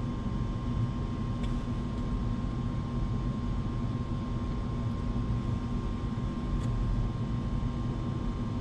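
Steady low room hum with a faint steady tone running through it, and a couple of faint small clicks.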